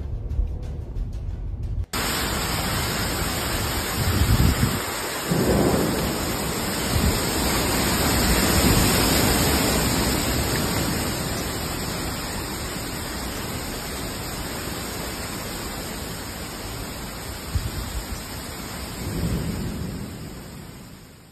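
Torrential rain and hurricane-force wind of a severe thunderstorm, a dense steady roar that starts abruptly about two seconds in. Heavy gusts hit the microphone about four to six seconds in and again near the end. It fades out just before the end.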